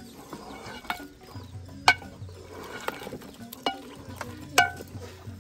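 Hand mixing flour into hot porridge in an aluminium cooking pot: soft stirring noise, with sharp metallic clinks against the pot about once a second. The loudest clinks come about two seconds in and near the end.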